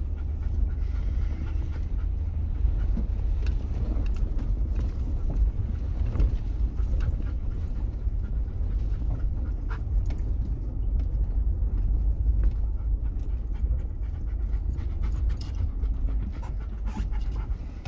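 Dog panting inside a vehicle cab over the steady low rumble of the vehicle driving a bumpy dirt track, with scattered knocks and rattles.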